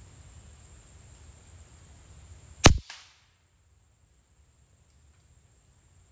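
A single shot from an Edgun Leshiy 2 .25-calibre pre-charged pneumatic air rifle: one sharp crack about two and a half seconds in, with a brief tail, taken at a squirrel in the treetops.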